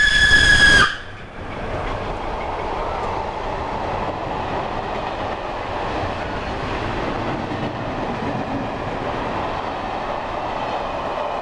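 Steam locomotive whistle blowing loudly for about the first second, then cutting off with a slight fall in pitch as the engine passes. A train of passenger coaches then rolls through at speed, a steady rumble and rattle of wheels on the rails.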